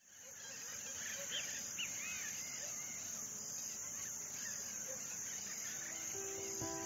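Insects chirring steadily at a high pitch outdoors, with scattered short bird chirps, fading in from silence at the start. Background music comes in near the end.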